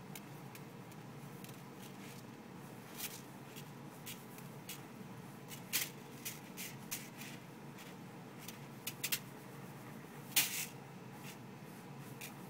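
Dry long-grain rice rustling and scattering in short, irregular bursts as a ferret digs through it in a plastic tub. The loudest bursts come about six and ten and a half seconds in.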